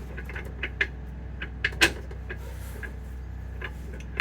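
Irregular metallic clicks and clacks of an M46 manual gearbox's gears and shift shafts being shifted into first and turned by hand, with one sharper knock about two seconds in, over a steady low hum.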